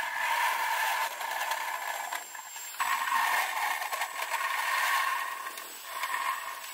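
Lark Streamliner test vehicle on the move: a steady hiss of rolling and running noise with light rattling. The sound changes abruptly about three seconds in, where one clip cuts to another.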